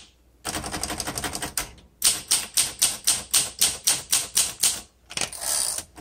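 1961 Olympia SM7 manual typewriter being typed on. A quick run of lighter clicks comes first, then steady sharp keystrokes at about five a second, and near the end a longer sliding sound as the carriage return lever is thrown.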